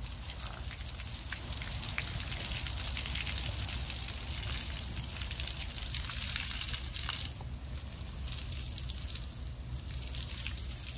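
Water from a hose gushing in a steady stream onto wet straw and muddy ground, splashing. The splashing thins briefly about seven seconds in.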